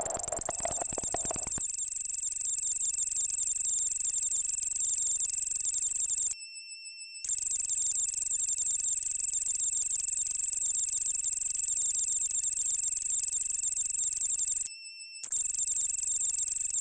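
Electronic sound-art audio: a steady, very high-pitched buzzing drone with a fine flicker, over a lower pulsing layer that stops about a second and a half in. Twice the drone drops out briefly, about six seconds in and again near the end, leaving a few pure, wavering tones.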